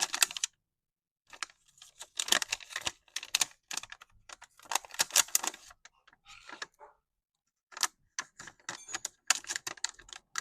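Runs of quick, sharp clicks and rattles from small hard parts being handled, broken by short pauses.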